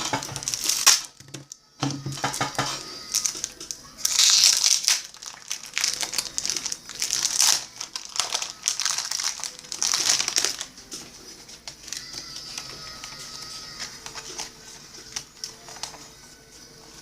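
Baseball trading cards rustling and swishing as they are handled and flipped through, several short crinkly passes in the first ten seconds, then quieter handling.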